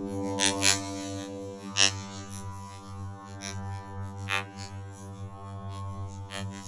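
A steady low droning hum made of several layered tones, broken by a few sharp crackles, the loudest about two seconds in.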